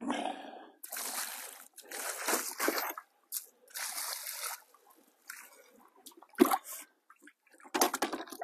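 Water poured from a bucket splashing over a landed common carp, in several separate pours over the first four or five seconds. A single sharp thump about six seconds in, then another splash of water near the end.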